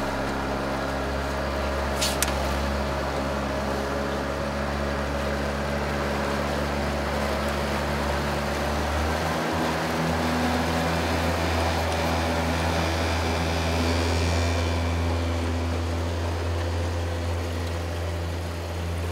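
Boat outboard motor running steadily under way, with the engine note stepping up about nine seconds in.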